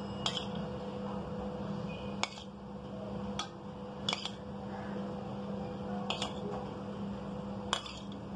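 A metal spoon clinks against a small bowl about six times, every second or two, as food colour is spooned out and drizzled over rice. A steady low hum runs underneath.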